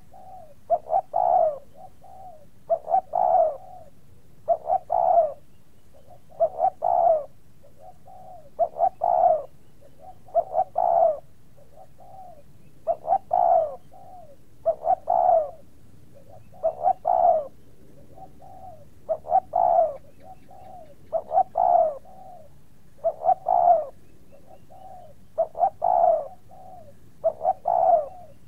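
A bird calling over and over, one phrase of a few short notes about every two seconds.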